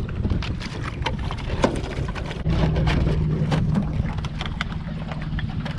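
Small boat's motor running, a steady low hum that grows stronger about two and a half seconds in, with scattered knocks and clicks over it.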